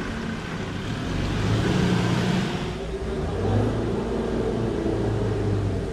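A 4WD's engine pulling under load through a creek crossing, revving up about a second in and holding a steady drone.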